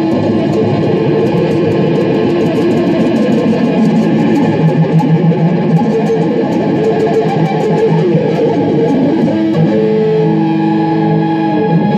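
Electric guitar played fast with a pick, a dense cluster of rapidly repeated notes that settles into a few held, ringing notes near the end.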